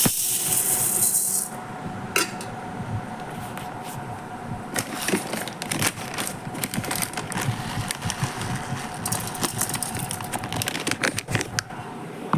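A loud hiss for the first second and a half, then irregular clicking and rattling.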